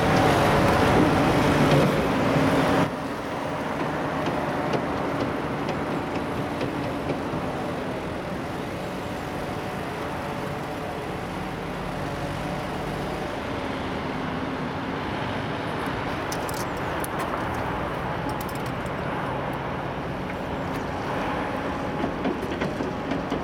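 Boeing 787 Dreamliner's turbofan engines in reverse thrust as the airliner rolls out along the runway after touchdown: a steady rushing jet noise. The first three seconds are louder, with a low hum of tones, and cut off abruptly.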